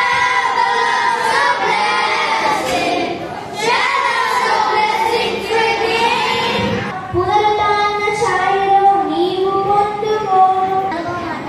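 Children singing a song into a handheld microphone, their voices carrying a sustained melody.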